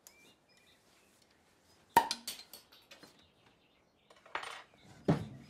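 Dishes, glasses and cutlery clinking on a table as it is cleared: one sharp clink about two seconds in, a few lighter ones right after, and another knock near the end. A short rustle comes just before that last knock.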